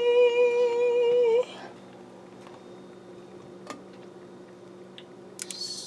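A person's voice singing one long held note that breaks off about a second and a half in. Then it goes quiet, leaving a faint steady hum, a soft click, and a brief high squeak near the end.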